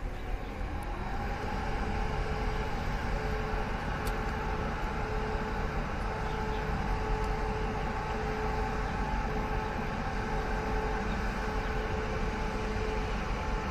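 E1000-series electric power car of a push-pull express train setting off slowly, its running rumble carrying a steady two-tone whine that comes in about a second in.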